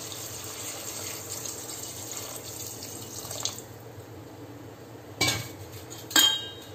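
Water poured in a steady stream into an aluminium pressure cooker of chopped vegetables, stopping about three and a half seconds in. Two sharp clatters follow near the end.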